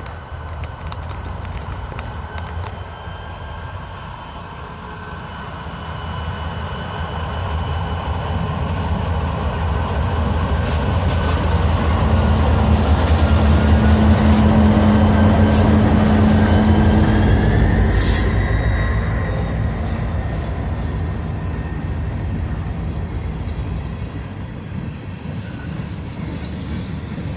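Turbocharger whine from EMD diesel locomotives over the deep rumble of their engines as the locomotives get moving. The whine rises in pitch as the engines load up, and the sound builds to its loudest about halfway through, then eases off.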